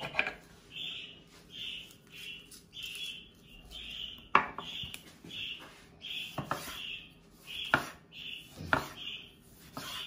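Kitchen knife slicing a tomato on a wooden cutting board: several sharp knocks of the blade reaching the board in the second half. Under it runs a steady series of short high chirps, about two a second.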